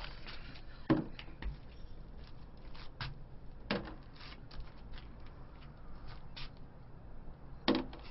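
Bottles being handled and set down on a plastic container: scattered sharp knocks, the loudest near the end, with light rustling between them.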